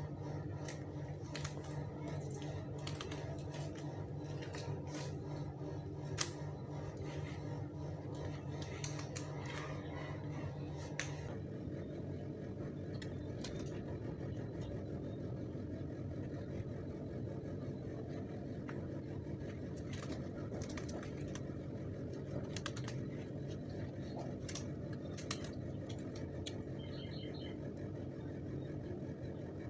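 Scattered light clicks and crackles of red adhesive backing tape being peeled and a rubber carbon-look bumper lip strip being pressed into place by hand, over a steady low hum that shifts about eleven seconds in.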